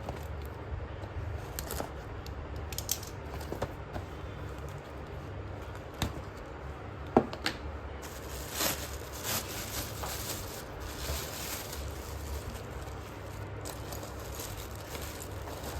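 Slate pencils clicking and crackling: scattered sharp clicks, two loudest about 6 and 7 seconds in, and a denser stretch of crackle in the middle, over a low steady hum.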